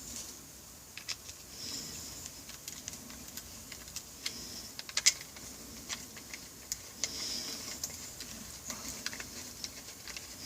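Light, irregular metallic clicks and clinks of a socket, bolts and washers being handled and run in on a motorcycle brake caliper.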